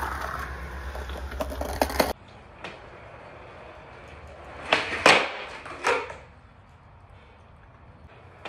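Skateboard on concrete: wheels rolling with a few clicks for the first two seconds, then a cluster of sharp clacks from a skateboard's tail popping and the board landing, about five seconds in, as backside 360s are tried on a concrete floor.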